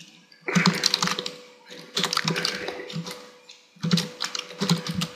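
Computer keyboard being typed on, keys clicking in quick runs, in three bursts with short pauses between.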